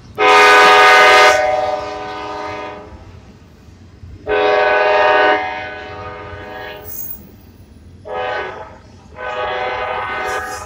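Norfolk Southern freight locomotive's multi-chime air horn sounding four blasts, long, long, short, long: the standard warning for a grade crossing. A steady low rumble of the train runs underneath.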